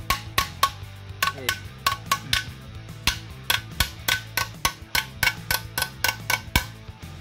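A hammer tapping rapidly on the metal flange joint of a two-stroke three-wheeler silencer, sharp ringing metal-on-metal taps about three or four a second that stop near the end, knocking the bent-out packing back into place. Background music plays underneath.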